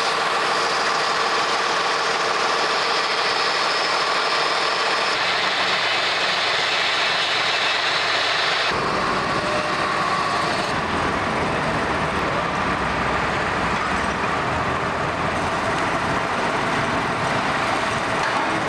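Steady, dense mechanical noise like heavy machinery or a large vehicle engine running, with a deeper rumble coming in abruptly about nine seconds in.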